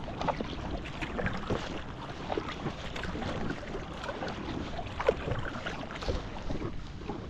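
Water splashing and lapping against an inflatable packraft on a lake, with irregular paddle splashes and small knocks on the hull.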